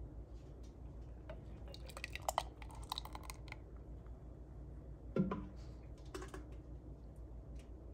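Clinks and taps of a stainless steel canning funnel and glass jars being handled while jam is poured, a quick cluster of them about two seconds in, then a heavier knock about five seconds in and one more tap after it.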